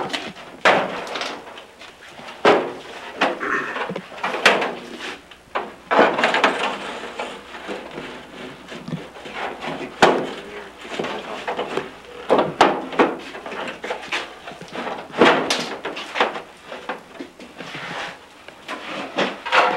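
Irregular knocks, bumps and clatters of objects being handled and moved, a dozen or so sharp hits spread unevenly with shuffling between them.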